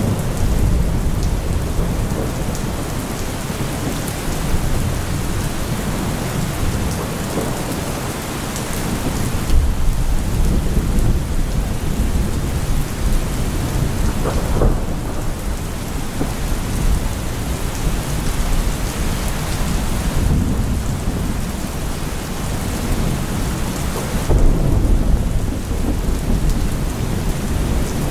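Thunderstorm: steady heavy rain hiss with deep rolling thunder rumbling underneath, swelling louder around ten seconds in and again near the end.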